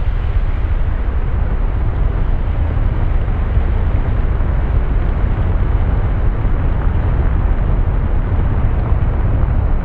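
Dark, murky ambience sound effect: a steady deep rumble with a dense hiss above it, unchanging throughout.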